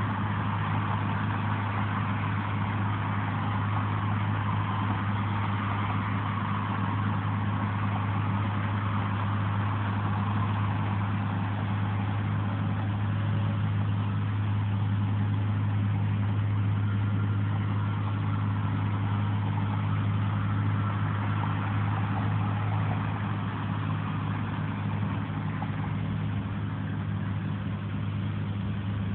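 A vehicle engine idling, a steady low hum that does not change, with road traffic noise around it.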